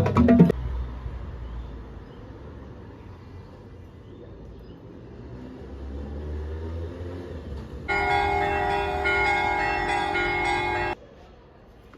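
A low rumble builds, then a loud horn sounds a steady chord of several tones for about three seconds, starting and cutting off abruptly.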